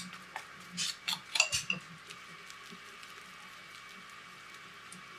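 Wooden chopsticks clicking and scraping against a bowl and a natto tray as sticky natto is scraped into the bowl: a handful of sharp clicks over the first two seconds.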